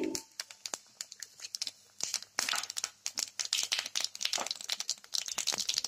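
Cumin seeds and dry red chillies crackling in hot oil in a kadhai as a tempering: a stream of small irregular pops with stretches of sizzling hiss.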